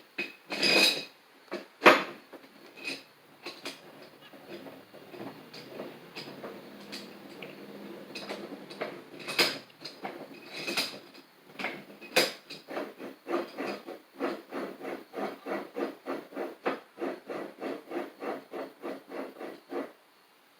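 Old cast bench vise being worked by hand: a few sharp metal clanks, then the screw turned through its threads, rubbing and grinding, with a faster run of even strokes about three a second near the end.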